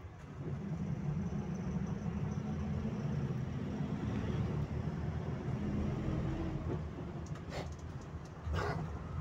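Bogdan A20111 city bus heard from inside the passenger cabin while driving: a low engine and road drone that swells about half a second in and then holds steady, with two short knocks from the body near the end.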